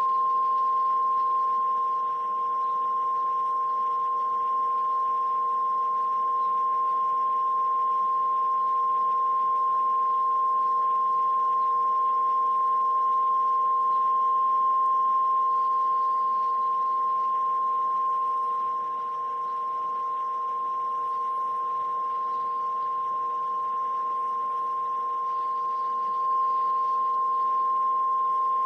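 A steady electronic test tone with a weaker tone an octave below it and a background hiss, passing through a compressor-limiter under test. The output holds at a nearly constant level, with small dips and one small jump.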